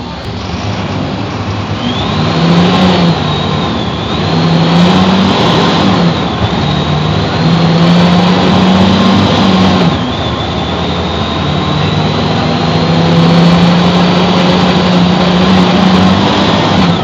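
Mercedes-Benz OF-1724 bus's OM 926 LA six-cylinder turbo-diesel engine pulling as the bus accelerates, its note rising and dropping back at three gear changes, then holding a long, steady pull. A high whine rises and falls along with the engine.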